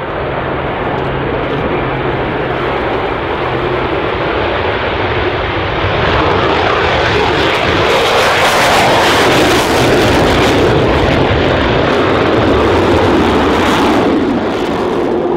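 F-22 Raptor's twin jet engines at high power during takeoff and a steep climb: a loud, steady rush of jet noise that swells about six seconds in and is loudest a few seconds later.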